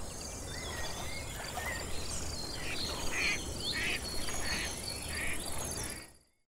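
Nature ambience: insects calling in a steady rapid pulse, with several short bird chirps and calls over it, fading out about six seconds in.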